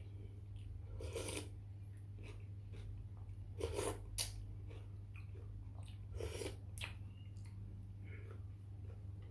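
A person eating close to the microphone: a handful of loud crunchy bites and chewing, about five separate crunches, over a steady low hum.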